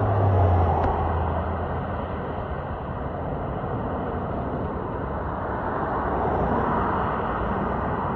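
Steady road and traffic noise from cars on a highway, with a low hum that fades out over the first two seconds.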